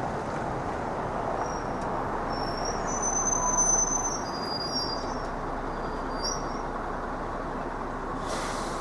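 A train passing over a level crossing: a steady running noise, slightly louder a few seconds in, with a few brief high-pitched squeals in the middle.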